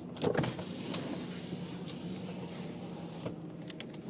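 Vehicle driving slowly over a bumpy farm road: a steady engine hum with road noise, broken by a few knocks and rattles from the bumps.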